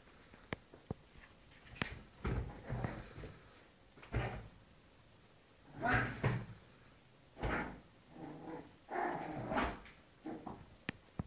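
Small dogs fighting on a leather sofa: irregular short bursts of growling and scuffling every second or two, with a few sharp clicks in between.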